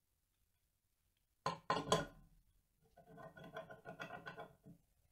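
Rusty steel saw frame set down on a wooden board table with three quick knocks, then a longer run of small clattering and scraping as it is shifted about on the boards.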